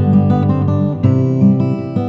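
S. Yairi YD-303 steel-string dreadnought acoustic guitar with jacaranda back and sides, played with full ringing chords that change about a second in.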